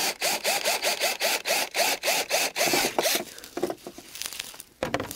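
Cordless drill boring holes in a fibreglass front spoiler, its motor whirring in rapid short pulses, about five a second, until it stops about three seconds in. A few light handling knocks follow, with a sharper knock near the end.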